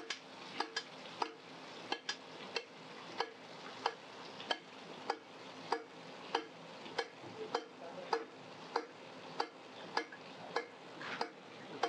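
A metal spoon clinking against the side of a stainless steel skillet in a steady rhythm, about three clicks every two seconds, as melted butter is spooned over a pan-fried trout fillet. The butter sizzles faintly underneath.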